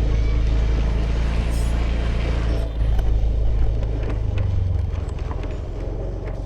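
A 2018 Honda Vision scooter's single-cylinder engine runs steadily under way, with wind and road noise over it. The engine note shifts a little past four seconds in.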